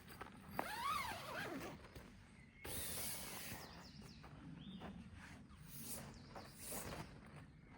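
Animal calls outdoors: one loud call that rises and then falls in pitch about a second in, followed by fainter calls and a brief burst of hiss a little under three seconds in.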